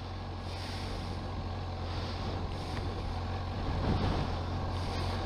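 Motorcycle engine idling steadily, a little louder after about four seconds.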